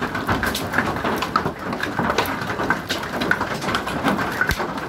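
Heavy rain mixed with hail: a steady hiss of downpour with many sharp ticks of hailstones striking hard surfaces.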